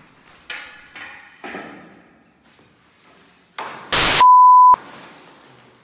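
Hollow metal table frame clanking twice as it is handled, each knock ringing briefly. About three and a half seconds in comes a burst of loud static hiss, then a half-second steady test-tone beep that cuts off abruptly.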